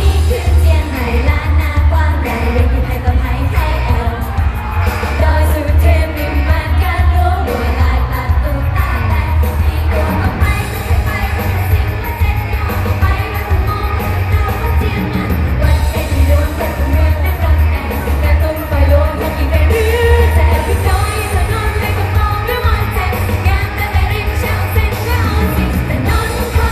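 Loud live pop music through a concert sound system, with a group of young women singing into microphones over a heavy bass beat.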